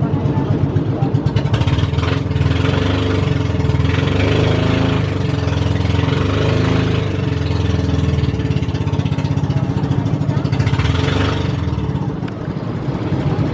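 Motorboat engine running steadily at a constant speed.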